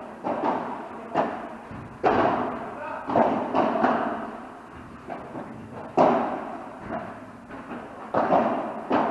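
Padel rally: a dozen or so sharp hits of the ball off rackets, glass walls and court, each with a short echo in a large hall.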